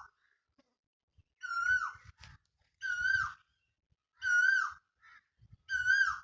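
An animal calling four times at an even pace, about one and a half seconds apart; each call is a short, clear, high note that is held and then drops at the end.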